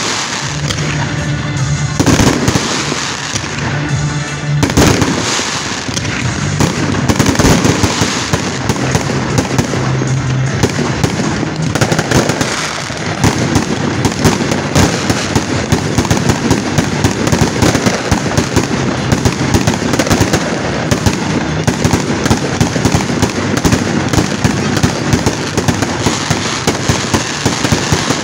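Fireworks display going off: a dense, continuous run of bangs, pops and crackling from many aerial shells bursting. The pops come several a second and grow more even and rapid from about halfway through.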